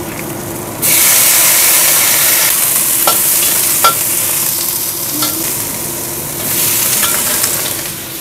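Oil sizzling loudly in a hot wok as vegetables go in; it jumps up suddenly about a second in. A metal spatula scrapes and clinks against the wok as the pieces are stir-fried, and the sizzle swells again near the end.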